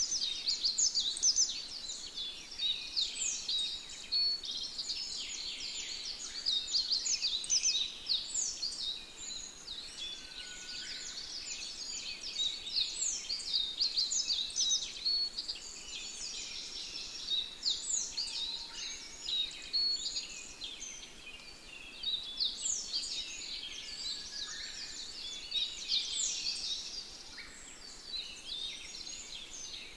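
A dense chorus of small birds calling: many overlapping, high-pitched chirps and quick down-sweeping notes, unbroken throughout, with a few fainter lower whistles now and then.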